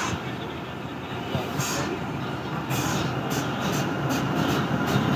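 Indian Railways WAP-7 electric locomotive approaching and passing close by, hauling an express train. From about three seconds in, its wheels click over rail joints several times a second, and the sound grows louder toward the end.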